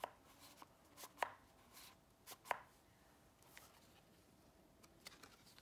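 Faint, irregular clicks and taps of a thick cardboard board book being handled and its pages turned.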